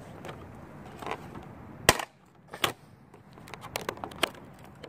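A series of sharp clicks and knocks: one loud one about two seconds in, then several smaller ones, clustered near the end. A faint rushing background drops away at the loud click.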